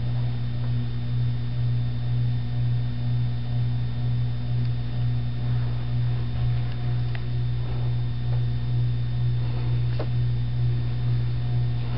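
A 1987 Air Cool 52-inch ceiling fan's motor running on medium speed with a steady hum. The owner calls it a little bit of a hum; the new capacitor put in to suppress it has not silenced it.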